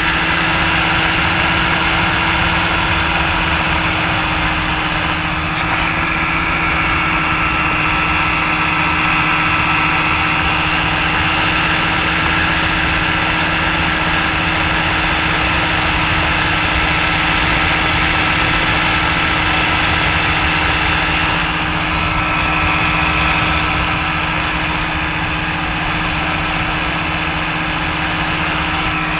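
Small ultralight aircraft engine running steadily in flight, a constant drone with a slight change in pitch about six seconds in and again near twenty-two seconds, over a rush of air noise.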